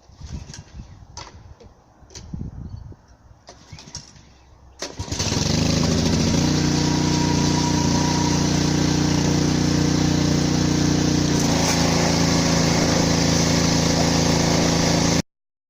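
A few scattered knocks, then about five seconds in a pressure washer's small engine starts and runs steadily, with the hiss of the water jet over it. The engine note shifts about eleven seconds in, and the sound cuts off abruptly near the end.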